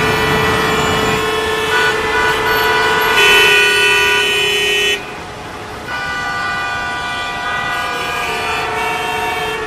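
Vehicle horns honking in road traffic, several held horns sounding over one another almost without a break. The horns cut off about five seconds in, and others start up again a second later, a little quieter.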